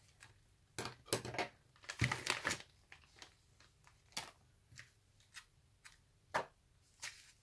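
Scissors cutting open plastic packaging, with the plastic crinkling in short bursts, then scattered light clicks and taps of small plastic parts being handled and set down.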